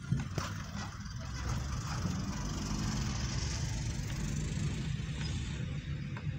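Road traffic heard from inside a moving car: a steady low rumble of engine and tyres, with a hiss that swells in the middle as a vehicle passes close by.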